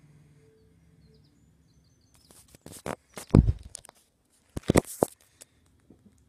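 Handling noise close to the microphone: bursts of rustling and clicking, with a loud thump about halfway through and another about a second and a half later. Faint television sound lies underneath.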